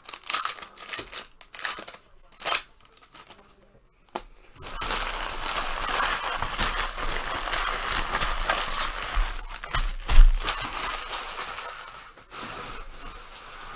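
Trading-card packaging being handled and torn open: a few scattered clicks and rustles, then from about four seconds in a long stretch of continuous crinkling and tearing, with one sharp louder crackle near the end.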